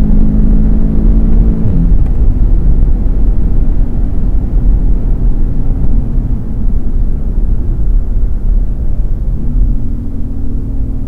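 Audi S3 8VA's turbocharged four-cylinder engine heard from inside the cabin at high speed, under heavy road and wind rumble. Its steady note drops away about two seconds in, leaving mostly rumble, and a lower steady engine note returns near the end.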